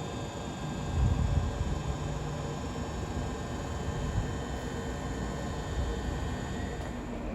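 London Overground electric train running, heard inside the carriage: a steady low rumble of wheels on the track, with faint steady high tones above it. The rumble gets louder about a second in.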